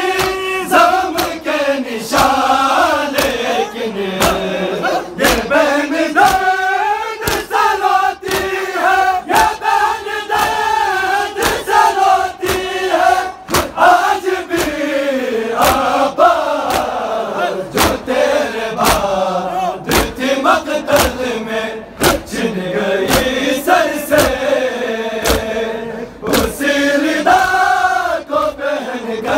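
A large crowd of men chanting a Shia noha in unison, in a mournful sung refrain, over a steady beat of sharp open-hand slaps from matam (chest-beating).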